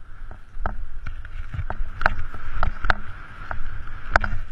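Skis running downhill through soft snow, a steady rushing hiss with frequent irregular sharp knocks and clatters.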